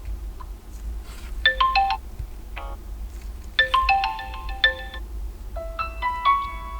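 A built-in Vivo V23 5G ringtone playing: a short melody of clear, bright notes repeated in phrases about every two seconds.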